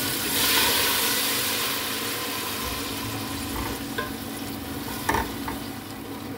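Browned sliced onions sizzling in hot oil with a little water just added, stirred with a spatula. The sizzle swells about half a second in and then slowly dies down, with a few knocks of the spatula against the pot near the end.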